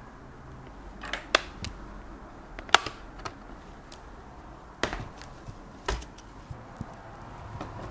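A handful of sharp, separate clicks and knocks as the bottom cover of a ThinkPad X1 Carbon is unclipped and lifted off the laptop's chassis.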